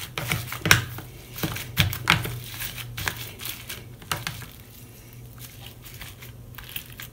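Floam, slime packed with styrofoam beads, squeezed and kneaded by hand in a plastic tub: irregular crackling and clicking of the beads, busiest in the first four seconds or so, then sparser.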